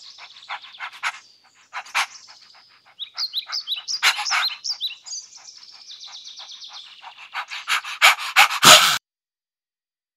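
French bulldog panting in quick, short breaths with small squeaky catches, ending in a few louder huffs. The sound then cuts off suddenly.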